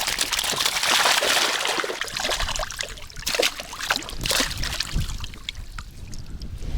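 Water splashing and trickling, from a keepnet of carp being handled at the water's surface: a dense rush of splashing in the first couple of seconds, then scattered single splashes and drips.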